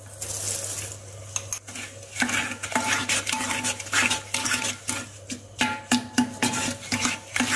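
A wooden spoon stirring thick sugared orange pulp in a ceramic jar, mixing in the yeast and crushed wheat for orange wine. From about two seconds in it scrapes and knocks against the jar's sides in quick repeated strokes.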